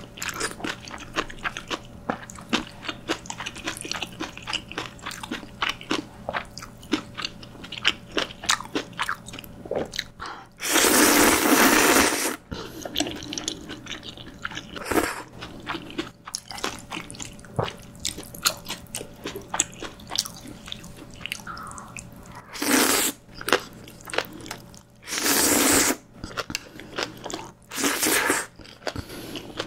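Close-miked eating of Chapagetti jjajang ramyun: steady wet chewing with many small mouth clicks. It is broken by loud slurps of saucy noodles from a wooden spoon, a long one about eleven seconds in and three shorter ones near the end.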